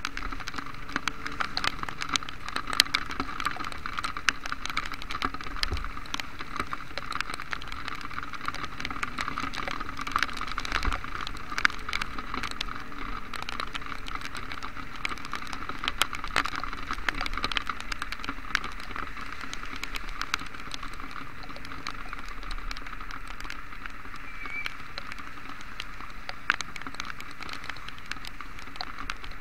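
Heavy rain: raindrops striking the camera in many sharp, irregular clicks over a steady hiss of rain on the wet road.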